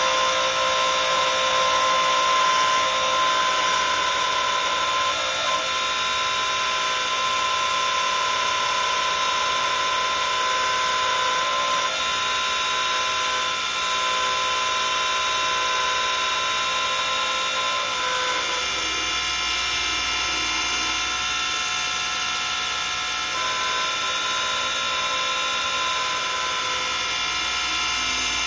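Wood lathe running with a steady motor whine while a hand-held turning tool cuts a spinning walnut and emerald-green spindle blank, with a continuous hiss of shavings coming off the cut. The tone shifts slightly about two-thirds of the way in, as a low rumble comes in.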